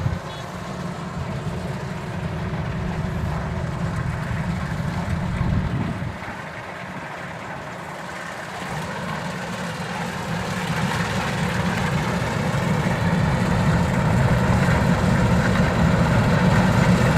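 Kubota DC-93 rice combine harvester running, a steady diesel engine and machinery drone. It drops off about six seconds in, then grows steadily louder.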